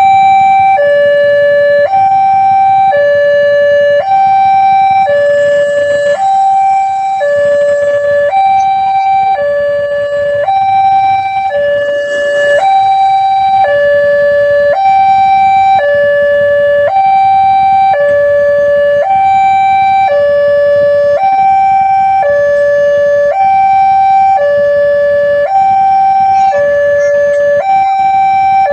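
Railway level-crossing warning siren sounding a loud two-tone alternation, a higher and a lower tone of about a second each, repeating without a break.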